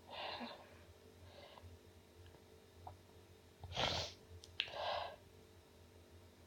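A woman sneezing: one loud, sharp sneeze about four seconds in, followed a moment later by a shorter second burst. There is a quick, breathy intake of breath near the start.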